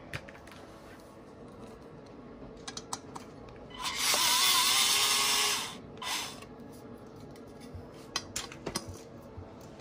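Craftsman 4V Speed Drive cordless screwdriver running for about two seconds, starting about four seconds in, as a steady motor whine while it turns a screw in a ceiling-fan light fitting. A short second burst follows, and small handling clicks come before and after.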